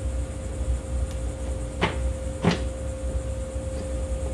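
Plastic deck cover of a riding lawn mower being pressed back into place on the steel deck: two sharp knocks about half a second apart, a couple of seconds in, over a steady low hum.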